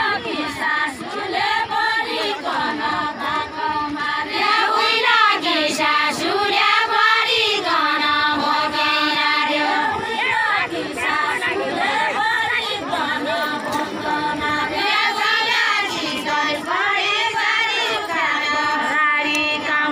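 A group of women singing a Deuda folk song together in chorus, in phrases with short breaks between them.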